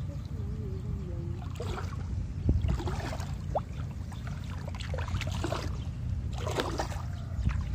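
Water splashing and sloshing in several short bursts, the loudest with a thud about two and a half seconds in, over a steady low rumble.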